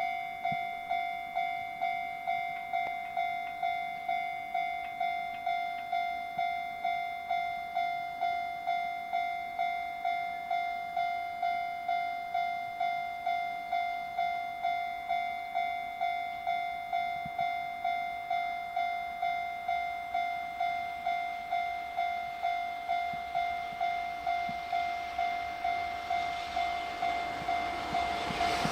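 Japanese level-crossing warning alarm ringing: a steady electronic bell tone repeating at a little under two rings a second, signalling an approaching train. Near the end the approaching train's noise begins to rise under it.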